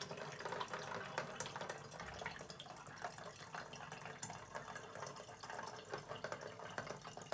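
Water trickling and dripping through a cotton pad in a moka pot's coffee basket, used as a makeshift water filter: a faint steady trickle with many small irregular drips, thinning a little toward the end.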